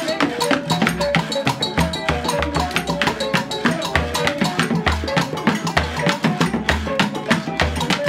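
Traditional Ghanaian percussion ensemble playing a steady groove: an upturned calabash floating in a basin of water, struck with sticks, gives deep booms about once a second, under a busy layer of quick wooden clicks, rattles and short pitched notes from handheld instruments.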